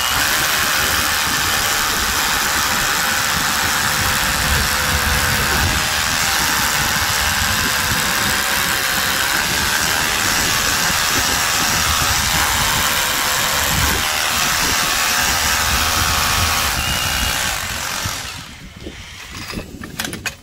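Einhell Herocco 18V brushless cordless rotary hammer drilling into reinforced concrete, hammering steadily until it stops about eighteen seconds in. A few light knocks follow near the end.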